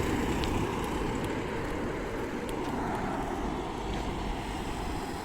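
Steady noise of road traffic moving past, with wind on the microphone.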